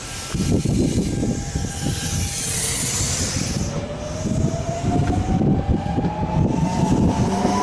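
Nankai electric commuter train moving past a station platform: a steady rumble of wheels on the rails. From about halfway, a rising whine from the train's traction motors.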